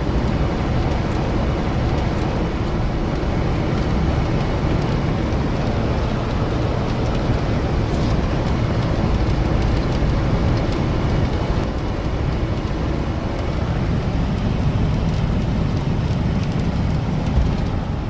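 Steady road and engine noise inside the cabin of a moving car, an even noise that is heaviest in the low end.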